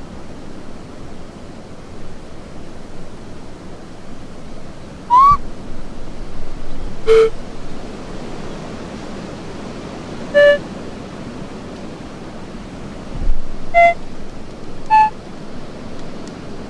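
A person making short, hoot-like noises with his voice or hands: about six separate hoots at different pitches, one rising, over a steady outdoor hiss.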